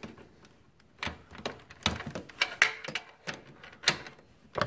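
Irregular metal clicks and knocks, about half a dozen starting about a second in, from a torque wrench with a 19 mm socket being worked onto the serpentine belt tensioner bolt.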